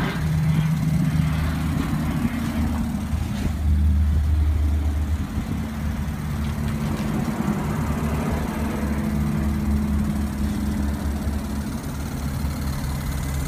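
Super Fog low-pressure misting pump, a small electric diaphragm pump, running with a steady low hum.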